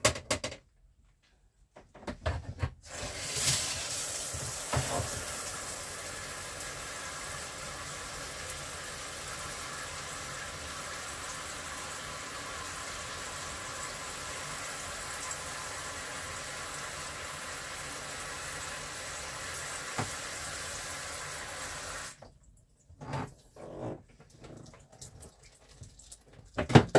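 Water running steadily into a portable washing machine's tub, filling it for a rinse cycle, then cut off suddenly; a few light knocks of handling follow.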